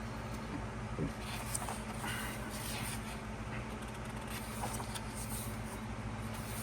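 Faint rustles and light taps of a glossy photo book's pages and album packaging being handled, over a steady low electrical hum.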